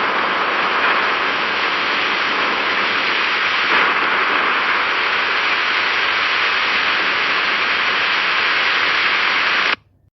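Heavy rain falling: a steady, dense hiss that stops abruptly near the end.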